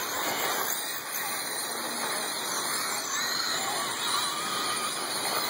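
Radio-controlled race cars running on a dirt oval: a steady haze of motor noise with thin, high whines that rise and fall as the cars pass.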